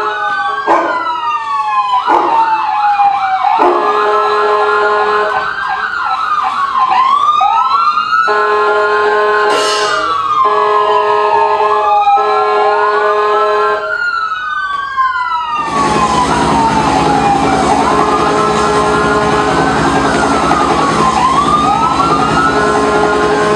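Siren sound effect: several sirens wailing at once in overlapping rising and falling sweeps over a steady held tone. About two-thirds of the way through, a loud hiss-like noise joins and keeps going under the sirens.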